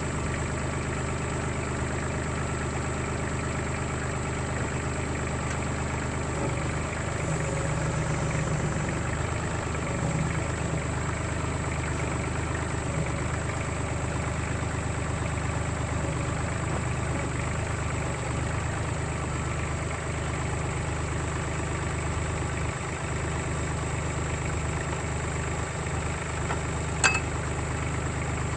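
Kubota L3800 tractor's three-cylinder diesel engine idling steadily, a little louder for a few seconds about a quarter of the way through. A single sharp click comes near the end.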